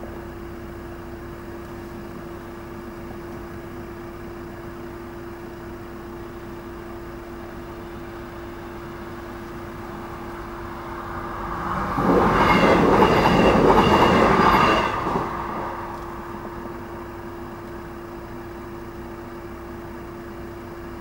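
A Northern passenger train passing over a level crossing at speed. Its rushing and wheel clatter build from about ten seconds in, are loud for about three seconds as it crosses, then fade quickly, over a faint steady tone.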